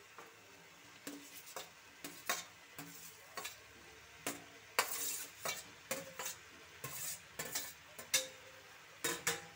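Spoon scraping fried potato and pumpkin pieces out of a metal bowl into a kadai of masala: irregular metal clinks and scrapes, and the pieces dropping into the pan, over a faint sizzle.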